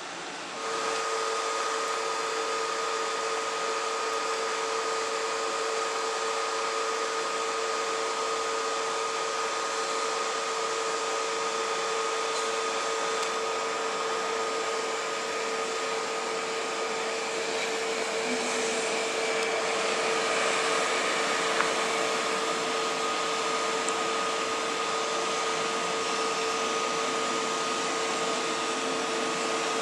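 Steady electrical whine from ICE high-speed trains: their cooling blowers and traction equipment hold two steady tones over a rushing hiss.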